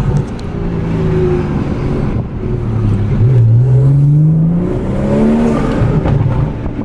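BMW 340i's turbocharged B58 inline-six, fitted with a cold air intake, catless downpipe and muffler delete, accelerating hard. It is loud; the engine note climbs, drops at a gear change about three seconds in, then climbs again.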